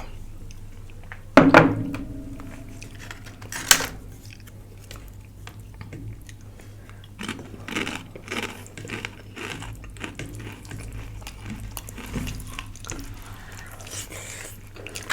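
Eating at a meal: a utensil clinks sharply against a plate with a short ringing note about a second and a half in, another clatter comes near four seconds, then chewing with small irregular clicks of cutlery and dishes.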